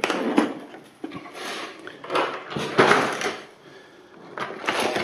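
Clear plastic parts bags crinkling and rustling as hands rummage through a plastic storage box of robot-kit parts, in four or so short bursts.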